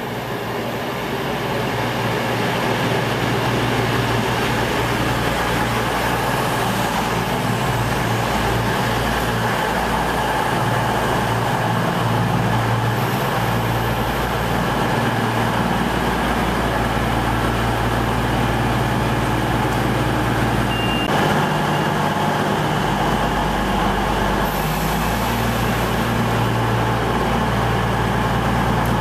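CrossCountry Voyager diesel multiple unit running alongside the platform: a steady low diesel-engine drone from its underfloor engines under a wash of train noise, growing louder over the first few seconds as the train comes in, then holding steady.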